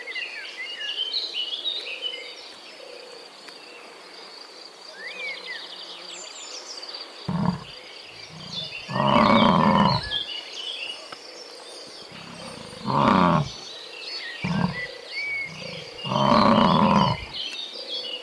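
A big cat roaring: a few short grunts build into long, loud roars, three times over, against a background of birds chirping and insects buzzing.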